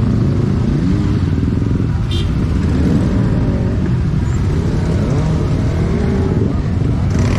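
Motorcycle engines running on the move, their pitch rising and falling as they rev and change gear over a heavy low rumble.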